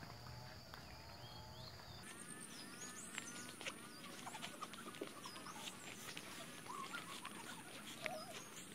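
Faint birdsong: many short chirps and calls, with light rustling and crackling steps through tall grass from about two seconds in.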